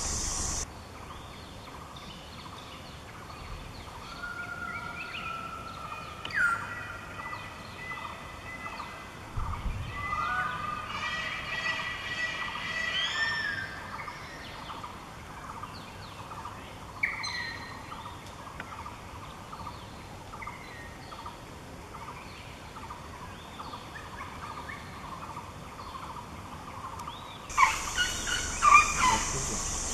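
Forest birds calling: scattered whistled calls that slide in pitch, the busiest run of calls about ten to fourteen seconds in. Near the end a steady high hiss comes in, with a few sharp, louder calls.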